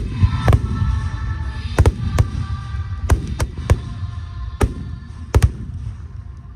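Firework shells bursting in sharp bangs, about ten of them, some in quick pairs, over a low rumble, with music playing through loudspeakers.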